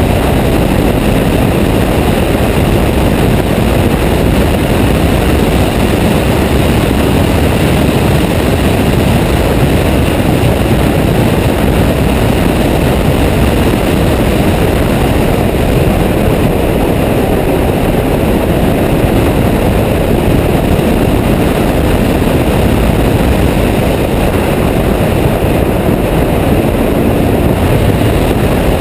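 Ferrari F12berlinetta at speed on track, heard from a camera mounted outside on the car's rear deck: a loud, steady rush of wind and road noise with the car's engine running beneath it.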